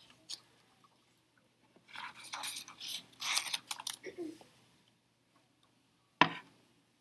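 Rustling and scraping handling noises from paper and small objects on a desk, in clusters from about two to four seconds in, then a single sharp knock about six seconds in, over a faint steady hum.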